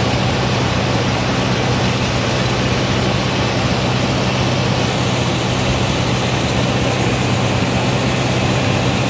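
Farm tractor engine running steadily under load while driving a New Idea two-row corn picker with sheller through standing corn: a constant low engine drone under the even rushing noise of the picker's machinery working.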